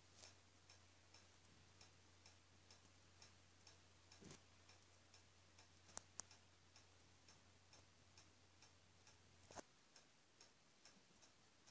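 Near silence with faint, even ticking, about two ticks a second, over a low hum that stops about two thirds of the way in; a few slightly louder single clicks.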